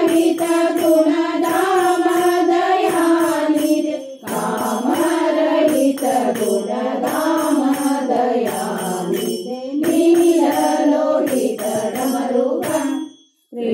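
Kannada Shiva bhajan: a sung devotional melody over jingling hand percussion keeping a steady beat. The sound cuts out abruptly for a moment near the end, then resumes.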